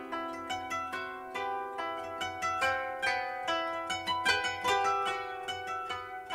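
Instrumental music on a plucked string instrument: a melody of single plucked notes, each ringing out and fading, about two to three a second.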